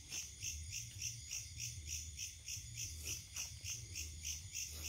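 Insect chorus chirring steadily in even pulses, about four a second, with a faint low hum underneath.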